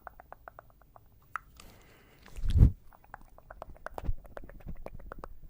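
Close-miked mouth sounds: a quick run of wet tongue clicks, about five or six a second. A loud muffled low thump about halfway through breaks the run.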